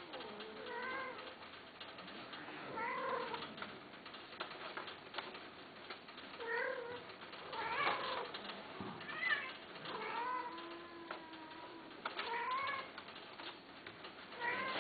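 Persian cats calling during mating: a string of wavering yowls every second or two, one of them lower and drawn out.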